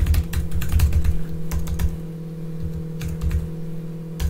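Computer keyboard typing: a quick run of keystrokes in the first two seconds, then sparser taps.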